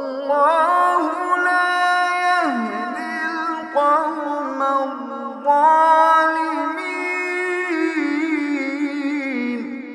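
A male reciter chanting the Quran in melodic tajwid style, drawing out long held notes with rippling ornaments. There is a short break about two and a half seconds in, then more long phrases that fade out at the end.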